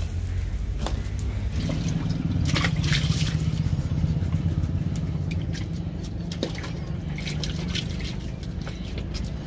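Water splashing and dripping in irregular bursts as a plucked duck is rubbed and rinsed by hand in a bucket of water, over a steady low hum.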